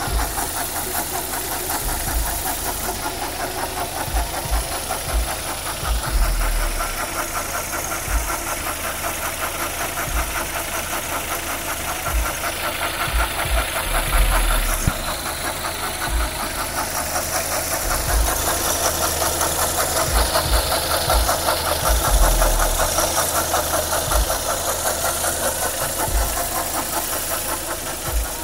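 Suzuki Reno's four-cylinder engine running steadily with a rapid, even knocking that goes on throughout; the cause of the knock is unknown to the owner.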